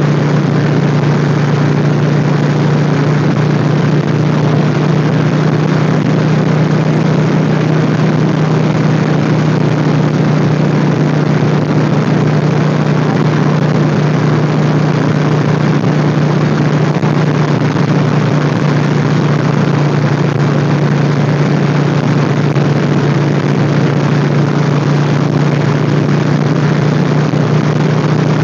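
Motorcycle engine running at a steady cruising speed, a constant low drone under steady wind rush.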